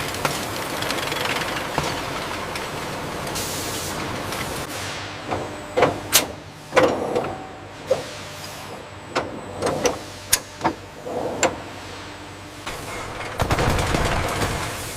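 Factory machinery running with a steady hiss; from about five seconds in, a string of sharp clicks and clanks at uneven spacing, before the hiss swells louder near the end.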